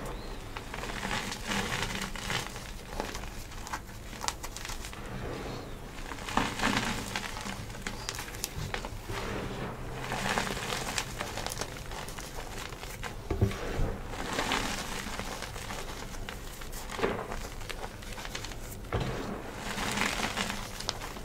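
Hands squeezing and crumbling handfuls of soft dyed gym chalk powder, with soft crunches and the patter of powder falling through the fingers. The sound comes in swells every few seconds.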